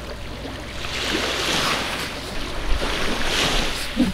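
Small sea waves washing onto a sandy shore in two swells about two seconds apart, with wind on the microphone. A short knock comes right at the end.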